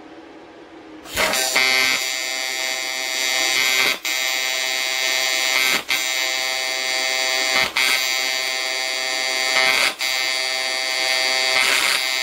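AC TIG welding arc on aluminium plate: it strikes about a second in and buzzes steadily and loudly, dropping out for a split second four times. During this run the tungsten's balled tip burns away, which the welder puts down to too low an AC frequency.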